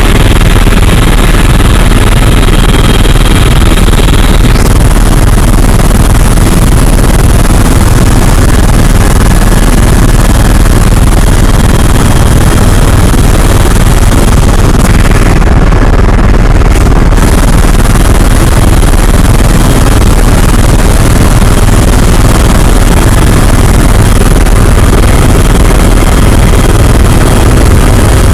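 Helicopter rotor and engine noise heard from inside the cabin: a loud, unbroken drone, heaviest in the low end.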